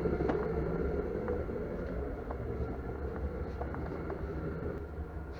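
A steady low rumble with a faint hum and a few light ticks, slowly getting quieter.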